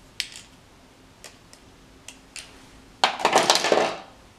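Light clicks of plastic cosmetic sticks being handled, then, about three seconds in, a second-long clatter and rustle as the products are put down and the next ones picked up.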